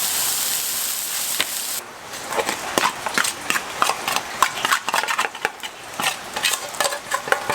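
A steady hiss that cuts off suddenly about two seconds in, then a run of quick, irregular knocks and clicks: a knife cutting salami into strips.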